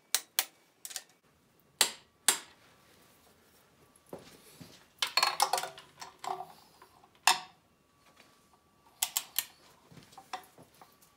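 Click-type torque wrench clicking as bolts on the bottom end of a GM 153 four-cylinder engine block reach their set torque. The clicks come one at a time, with a quick run of three near the end. A stretch of metal-on-metal rattling from the wrench and socket comes around the middle.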